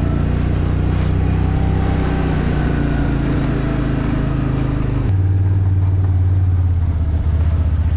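Can-Am four-wheeler (ATV) engine running as the machine rides slowly. About five seconds in, its note changes abruptly to a lower, heavier hum.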